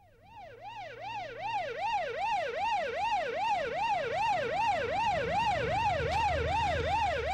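Police vehicle siren wailing in a fast, even up-and-down warble, about three rises and falls a second, with a low rumble underneath.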